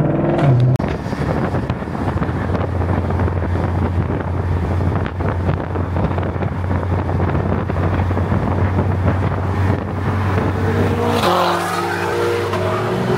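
Two V8 performance cars, a BMW M5 Competition and a Ford GT500, in a full-throttle street race. A hard-revving engine note peaks at the start. It gives way to a steady engine drone under heavy wind noise on the microphone. About eleven seconds in, an engine's note rises again.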